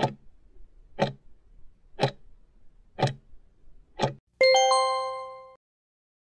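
Countdown-timer sound effect: five clock ticks, one a second, then a ringing chime of several tones that fades out over about a second, signalling that the time is up.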